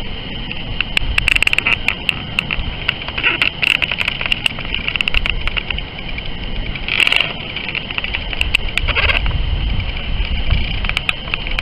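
Steady shoreline noise close to the water: small waves washing on a pebble beach and wind on the microphone, with a low rumble and scattered crackling clicks throughout.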